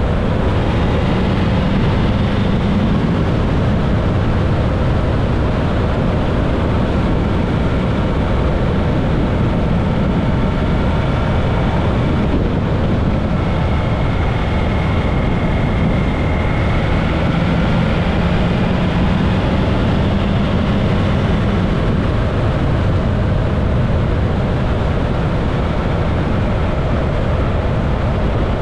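Motorcycle running steadily at road speed, its engine drone mixed with a constant rush of wind.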